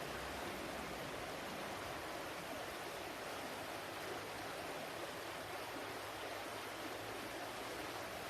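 Flowing water: a steady, even rush with no breaks or changes.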